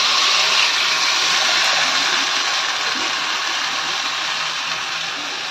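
Buttermilk and gram-flour batter pouring into a wok of hot oil and tempering spices, the oil sizzling with a steady hiss that slowly dies down.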